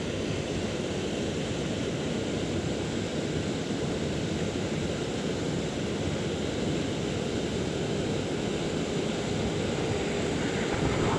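Steady wind noise on a chest-mounted GoPro's microphone, an even rushing hiss with no distinct events.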